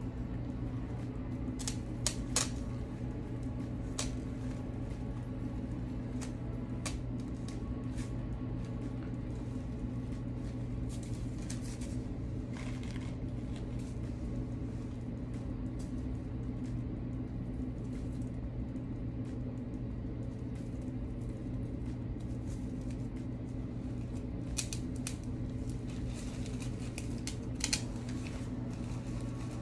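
Steady low hum with scattered sharp clicks and snips as artificial rose stems are handled. The snips sound like scissors, and the clicks come in small clusters, a few of them louder.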